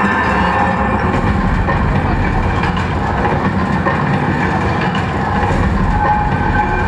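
Loud show soundtrack playing over outdoor loudspeakers: a steady rumbling, clattering mechanical sound effect, with a few faint pitched tones through it.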